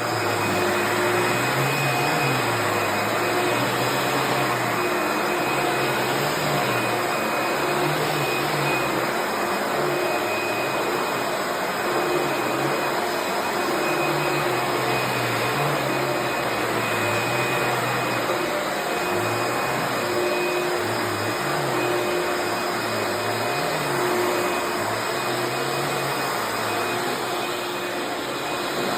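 Eureka The Boss Plus upright vacuum cleaner running steadily, its low hum wavering up and down under the steady whir of the motor.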